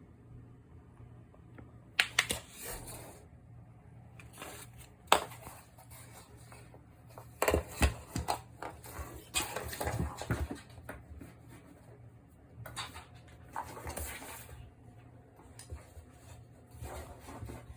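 Irregular bursts of scratching, tapping and light clattering as a cat paws at something under a refrigerator, with a faint steady low hum underneath.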